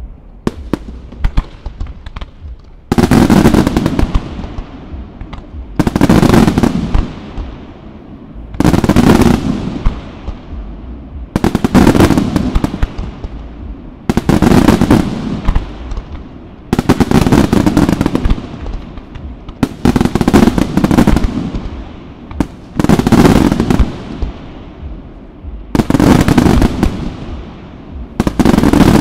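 Aerial fireworks display: a few scattered pops, then a regular series of loud volleys about every three seconds, each a dense rapid run of bangs and crackles.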